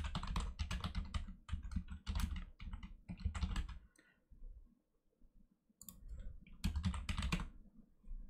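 Typing on a computer keyboard: quick runs of keystrokes, a pause of about two seconds in the middle, then a shorter run.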